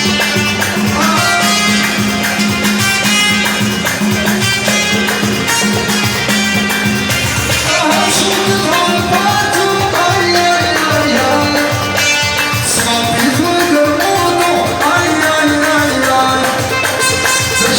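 Live raï music from a Korg Pa3X arranger keyboard, with a steady low drone over a beat. About eight seconds in, a male voice starts singing a winding melody over it.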